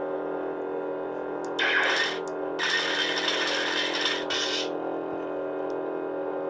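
Lightsaber sound font playing from a Proffieboard saber's speaker: a steady electric hum, with two spells of loud crackling hiss between about one and a half and four and a half seconds in.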